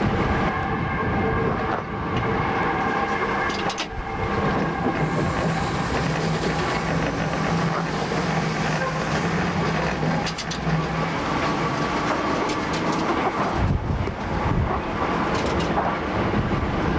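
Steel-mill machinery running with a steady metallic clatter and rumble, like rail cars on track, with scattered clicks. A low hum sits under it through the middle stretch.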